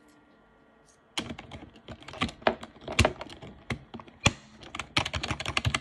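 Keys of a small hot-swappable mechanical keyboard being typed on: quiet for about a second, then a quick, irregular run of key clicks that comes faster near the end.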